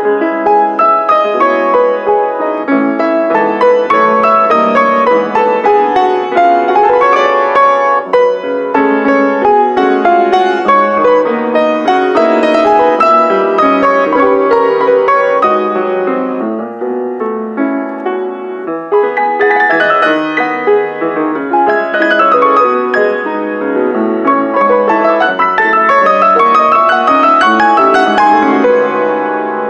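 A grand piano played four hands by two pianists: a busy, continuous classical passage that thins out briefly a little past the middle, then picks up again.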